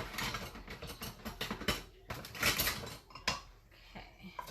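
Metal cutlery clattering and rattling as a spoon is fetched, a busy run of clinks for about three seconds, then a few lighter knocks.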